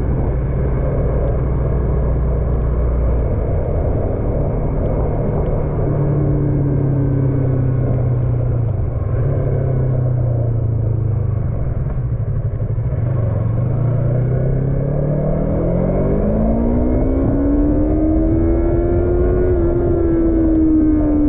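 Yamaha MT-03 motorcycle engine running under way, heard from the rider's position with wind and road noise. The engine note holds steady, drops a little past the middle, then rises sharply as the bike accelerates and eases off slightly near the end.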